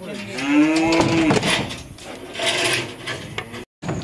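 A heifer moos once: a single long call lasting a little over a second, rising at first and then held. A short burst of noise follows about two and a half seconds in, and the sound cuts out abruptly near the end.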